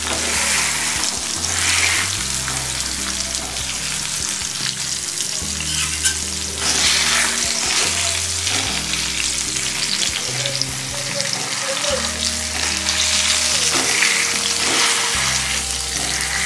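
Bitter gourd halves sizzling steadily in oil on an iron tawa, with a steel spatula scraping and pressing them against the pan. There is one sharp tap about six seconds in.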